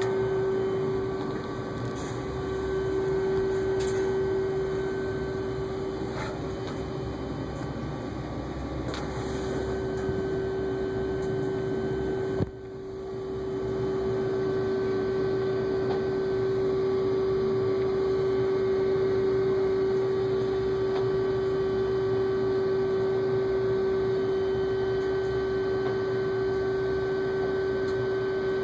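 A steady machine hum with one clear constant tone and fainter higher tones over a low rumble. A sharp knock comes about twelve seconds in, the hum briefly drops away, then it comes back.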